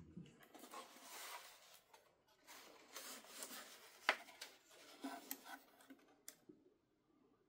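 Packaging being handled during an unboxing: irregular rustling and scraping, with one sharp click about four seconds in.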